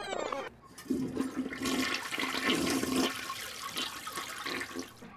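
Water rushing and gurgling. It starts about a second in and dies away near the end.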